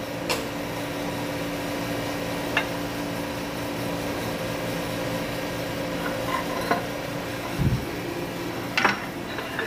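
A few sharp metallic clinks and knocks, spaced seconds apart, as heavy steel parts at a hydraulic shop press are handled, including the Hilux rear axle shaft with its newly pressed bearing. A dull thump comes shortly before the end, over a steady machine hum.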